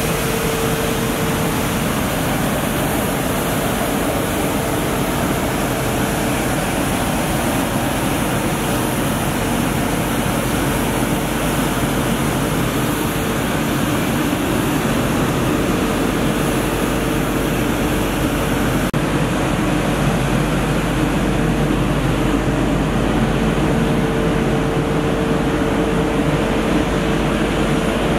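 Truck-mounted street sweeper on a Mercedes Arocs 1833 chassis at work: its engine and suction system run with a steady whine, while the rotating brushes scrub the paving and the water jets hiss.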